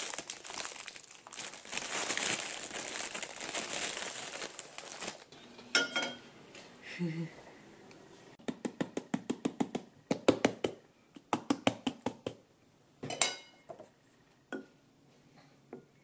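Clear plastic bread bag crinkling for several seconds as hands open it. After that come several runs of quick light clicks and taps.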